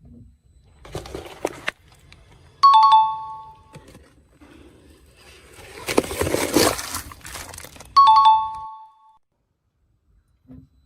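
Two-note ding-dong chime, a higher note falling to a lower one, sounding twice about five seconds apart. Between the chimes comes a burst of crackling, crunching noise, as of an object being crushed under a car tyre.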